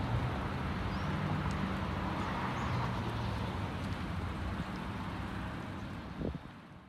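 Diesel engine of a railway ballast cleaner running steadily with a low hum as the machine travels away along the track, fading out near the end.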